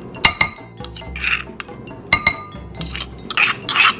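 Metal spoon tapping and scraping against a ceramic bowl, knocking garlic off into it: several sharp clinks mixed with three or four short scrapes.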